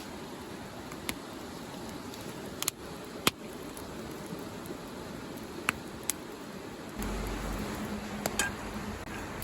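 Wood campfire crackling: scattered sharp pops and snaps over a steady hiss. A low steady hum joins near the end.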